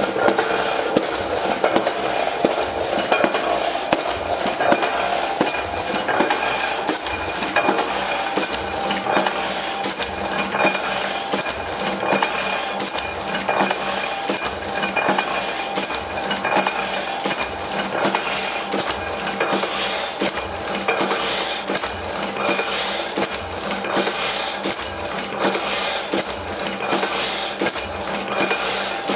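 Heidelberg Windmill platen letterpress running: a steady, rhythmic mechanical clatter of rapid clicks and knocks over a steady hum.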